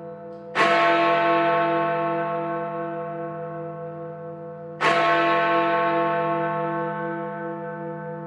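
A large bell struck twice, about four seconds apart, the same note each time, each stroke ringing on and slowly dying away with a slow waver in its low hum.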